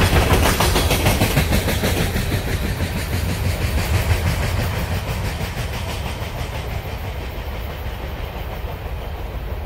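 Wheels of the last empty coal cars rolling past on the rails with a low rumble and a steady clickety-clack that fades as the end of the train moves away.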